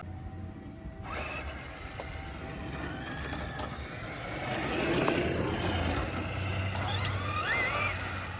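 Traxxas Slash RC truck with a VXL brushless motor driving, its electric whine rising and falling with the throttle over tyre and drivetrain noise, loudest about halfway through.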